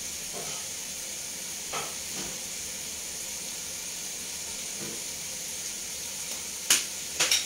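Steady hissing sizzle of meat and spice paste frying in a pan on a gas stove, with a light knock about two seconds in and two sharper knocks near the end.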